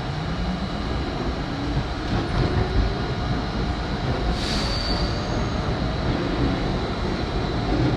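R32 subway train running through a tunnel: a steady rumble of wheels on rail, with a brief high wheel squeal a little past halfway.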